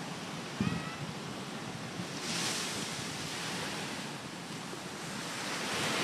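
Ocean surf breaking and washing up the sand, with a wave surging in about two seconds in and another building near the end.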